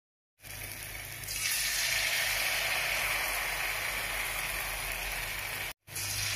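Hot oil sizzling as batter-coated susiyam balls deep-fry in an aluminium kadai. The sizzle starts about half a second in, grows louder about a second in, and cuts out for a moment near the end.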